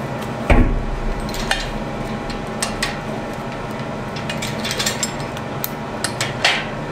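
Steel chain and hook of an engine hoist clinking and rattling as a turbocharger is hung from it, with a dull thump about half a second in. A steady low hum runs underneath.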